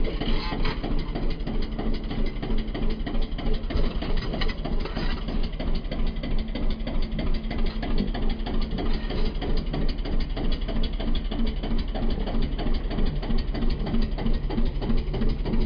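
Single-cylinder diesel engine of a Kubota two-wheel walking tractor running with a steady, even beat.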